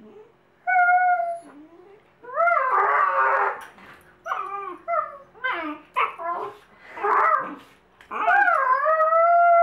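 A dog whining and howling: a short whine, a warbling yowl, a string of short rising and falling cries, then a long drawn-out howl that starts about eight seconds in.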